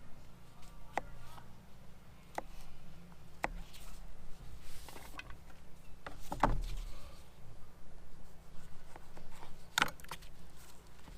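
A few scattered light clicks and knocks, about five in all, the loudest a little after six seconds in, over a faint low hum.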